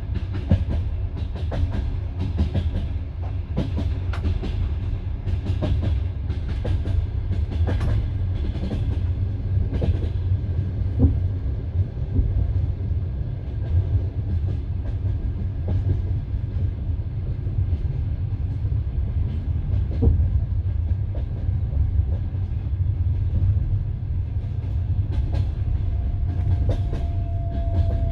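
Passenger train carriage running on the rails, heard from inside the carriage: a steady low rumble with the knock of wheels over rail joints, the knocks coming thicker in the first third. Near the end a thin steady tone comes in above the rumble.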